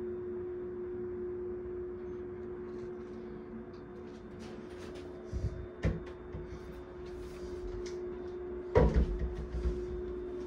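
A steady low hum, with two short knocks about halfway through and a louder cluster of knocks and thumps near the end.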